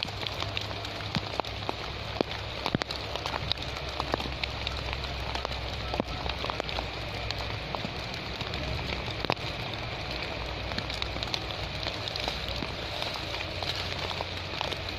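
Steady rain, with many separate drops ticking sharply close by, as on a plastic rain cover over the camera.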